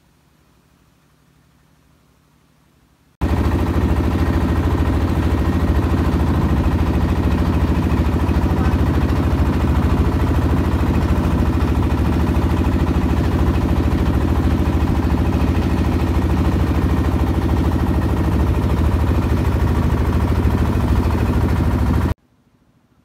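Boat engine running steadily, a loud, even low drone. It cuts in suddenly about three seconds in and cuts off suddenly near the end.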